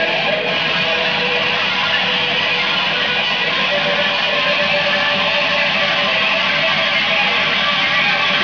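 Live band playing an amplified rock song: electric guitars, bass guitar, keyboard and drums together, steady and loud.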